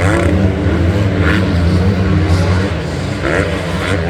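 250-class motocross bikes running on the track, their engines making a steady drone, with a few brief shouts from people at the track.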